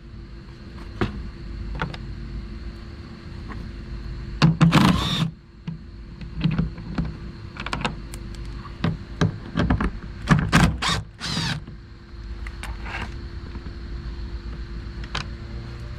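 Cordless drill with a 10 mm socket whirring in short bursts as it backs out the bolt holding the door speaker. The longest burst comes about five seconds in, with several quicker bursts and knocks a few seconds later.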